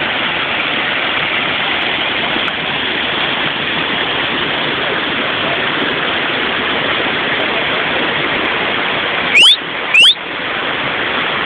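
Small waterfall on a forest stream: a steady rush of falling water. Near the end, two loud, short rising chirps come about half a second apart.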